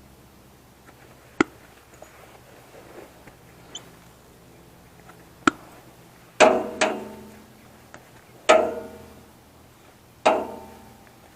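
Metal parts of a server rack clanking: two sharp clicks, then four louder metallic clanks, the first two close together, each ringing briefly before it dies away.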